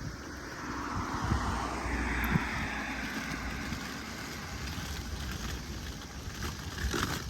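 A vehicle passing by: road noise swells over about two seconds and then slowly fades, over a low rumble, with a few sharp knocks near the end.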